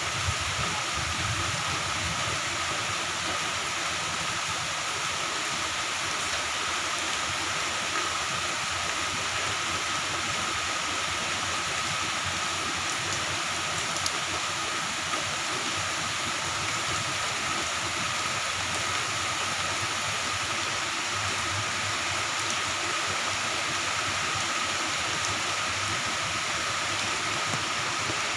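Moderate to heavy rain falling steadily, an even hiss with a faint steady high tone running through it and a couple of light clicks about halfway through.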